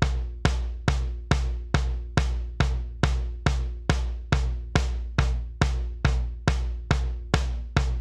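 Drum track from a song being mixed, playing a steady beat of evenly spaced hits, about two and a half a second. Each hit is a deep low thump with a bright top that dies away quickly. The track runs through a Monomizer plugin that folds its low end to mono.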